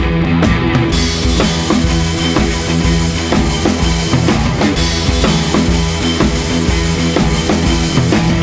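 Background rock music with a drum kit and steady bass beat; the cymbals and high end come in about a second in.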